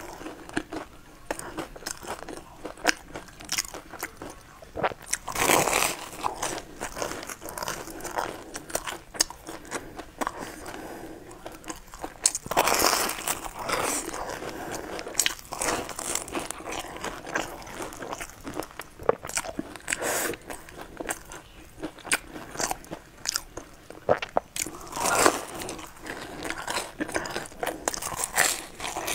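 Close-up eating sounds: biting into and chewing crumb-topped bread dipped in a white creamy dip, with many small crunches and clicks and louder stretches of chewing about 5, 13 and 25 seconds in.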